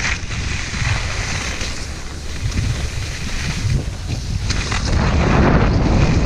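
Wind buffeting the microphone of a skier's action camera during a fast descent, mixed with skis hissing and scraping over snow. The scraping grows louder over the last second or so as the skis run onto firm packed snow.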